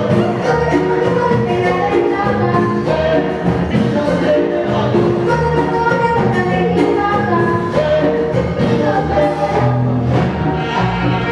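Music: instruments playing with voices singing, at a steady, loud level.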